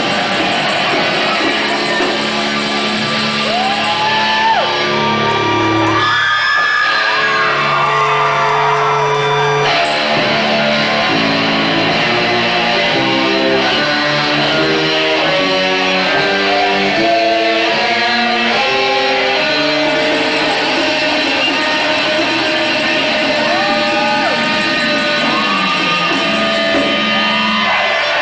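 Live rock band playing loud electric guitars, with a long stretch of fast note runs in the middle and notes bent up and back down near the start and again near the end.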